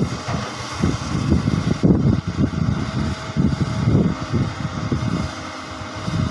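Hyundai crawler excavator's diesel engine and hydraulics running as it works its loaded bucket, an uneven low rumble with a faint steady whine above it.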